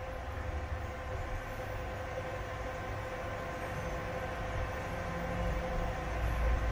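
Prolink PRO810-QS UPS running on mains power, giving a steady electrical hum with a thin high whine. A low rumble underneath grows louder near the end.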